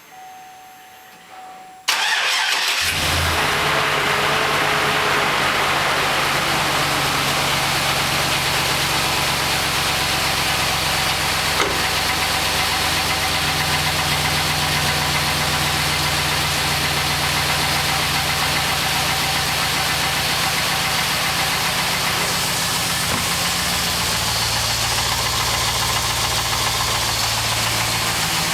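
The 2006 Trailblazer SS's LS2 6.0-litre V8 cranks and catches about two seconds in, then settles into a steady cold idle. The idle note shifts a little near the end. This is the cold-start running in which the owner hears piston slap.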